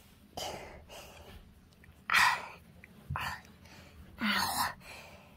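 A person's breathy voice sounds, four short whispered or gasped outbursts without clear words. The loudest comes about two seconds in, and the last ends in a short falling voiced sigh.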